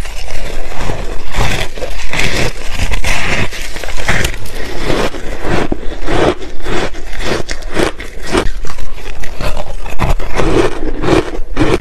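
Crunching and chewing of mouthfuls of freezer frost ice, loud and close-up, with many irregular crisp crunches following one another.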